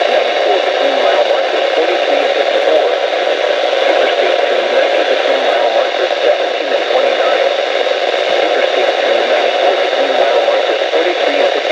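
Weather radio receiver playing steady static hiss through its small loudspeaker, with a broadcast voice only faintly present beneath the noise.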